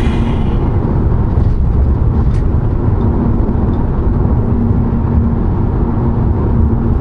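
Inside a diesel car cruising at highway speed: steady low road and engine rumble with a hum that fades in and out. One faint click about two and a half seconds in.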